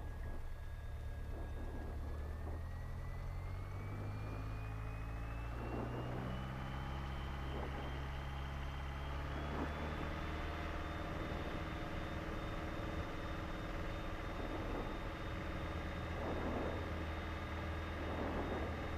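Piper PA-28 light aircraft's piston engine and propeller, heard inside the cabin, climbing steadily in pitch from about two seconds in to about ten seconds as the throttle is opened for the takeoff roll, then running steadily at full takeoff power.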